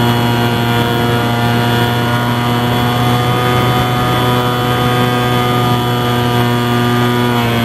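Electric motor and propeller of a Bix3 RC foam plane, heard from a camera on board in flight: a steady motor hum with a rough rush of air underneath. The pitch shifts slightly near the end.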